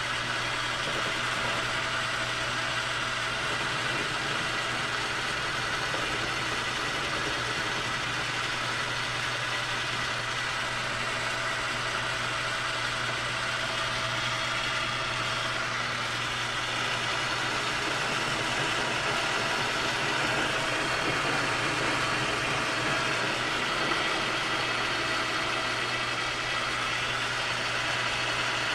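Metal lathe running steadily while a facing cut is taken across the bandsawn end of a cold-rolled steel bar.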